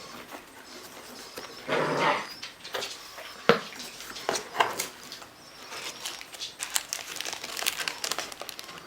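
Packaging being handled and opened: irregular crinkling and rustling, with scattered small clicks and one sharp click about three and a half seconds in.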